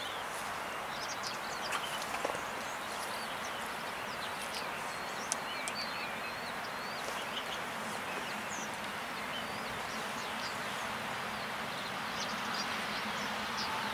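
Small birds chirping over a steady outdoor hiss. Near the end the rumble of an approaching ÖBB Taurus electric locomotive and its car-transporter freight train grows slightly louder, with a faint steady whine.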